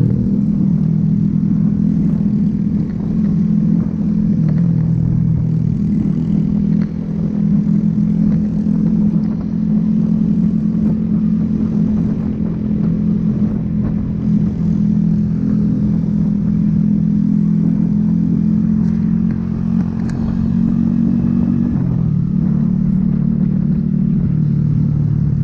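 Motorcycle engine running steadily at road speed, heard from on the bike, with rushing wind. The engine note drops a step about three-quarters of the way through.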